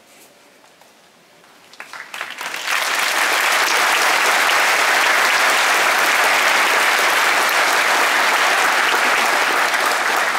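A large arena crowd breaks into applause about two seconds in: a few scattered claps, then loud, sustained clapping from the full stands.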